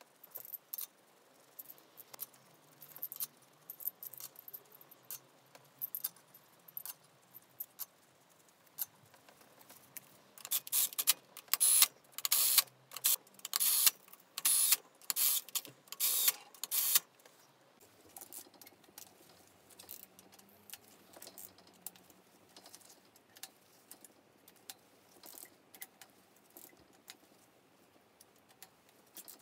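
Small metal engine parts and tools clinking and rattling as they are handled during engine assembly, with a louder, busier run of clinks in the middle.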